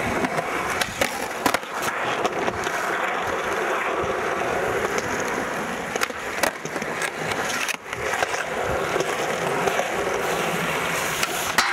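Skateboard wheels rolling on smooth concrete, a steady rumbling hiss. Sharp clacks of the board striking the ground come every second or so, unevenly, as tricks are popped and landed.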